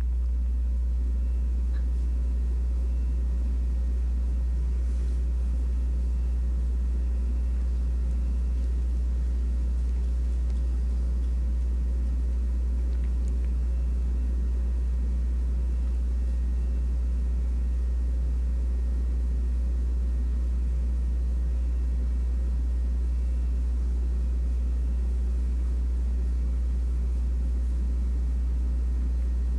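A steady low hum that does not change, with a faint hiss above it.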